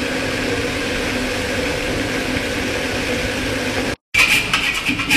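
A steady mechanical hum with a faint low drone, which stops abruptly about four seconds in; after that come a few sharp clatters and knocks.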